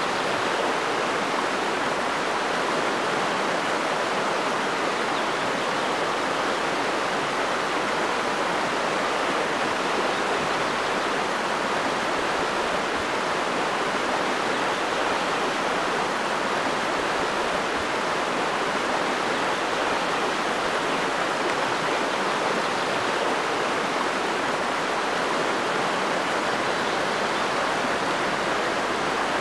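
River water rushing steadily over shallow rapids and rocks, a constant even noise.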